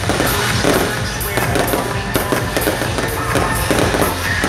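Fireworks going off in rapid, irregular bangs over music with a steady bass line.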